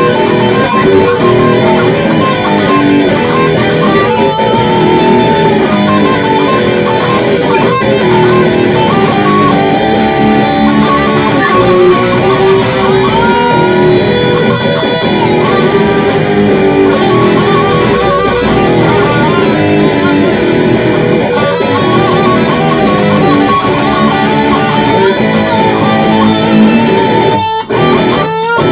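Electric guitar playing hard rock in E minor, loud and continuous, with a few abrupt short stops about a second before the end.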